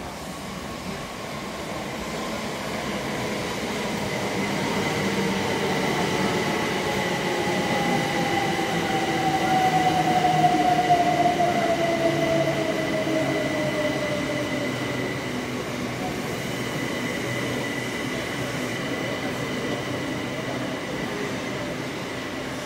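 Southeastern electric multiple-unit train running into the platform and braking. Its traction motor whine falls steadily in pitch over about fifteen seconds, and the train is loudest as it passes about ten seconds in, with a steady higher whine alongside.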